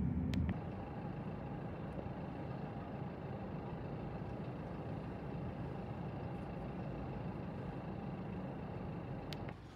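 Steady running noise of a moving road vehicle, an even rumble with a faint steady whine. A louder sound cuts off about half a second in, and the noise drops away abruptly near the end.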